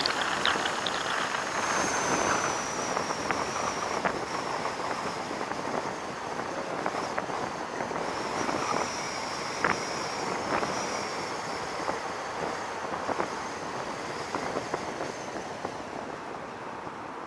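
A vehicle driving along, with road noise and wind rushing over the microphone, scattered light clicks, and a faint high whine that comes and goes.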